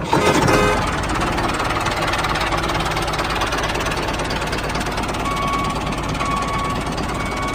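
Small engine running steadily with a fast, even knocking chug.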